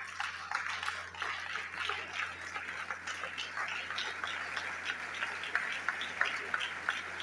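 An audience applauding: many hands clapping at an even, steady level.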